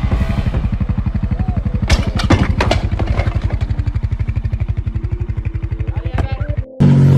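Off-road vehicle engine running at low speed with a rapid, even pulsing, a few knocks and clatters about two to three seconds in. Near the end it cuts abruptly to a different engine holding a steady, louder drone.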